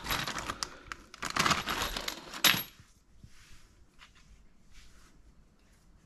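Clear plastic parts bag crinkling and rustling as black plastic caps are pulled out of it, with small hard parts clicking together; busy for about the first two and a half seconds, then only faint rustles.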